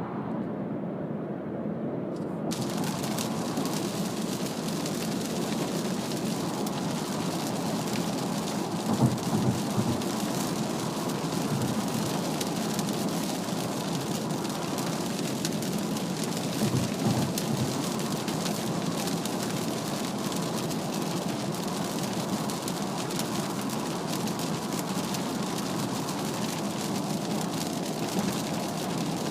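Heavy rain and tyre spray hissing against a car at highway speed, heard inside the cabin over the low road rumble. About two and a half seconds in, the hiss comes in suddenly and then holds steady, with a few low thumps around the middle.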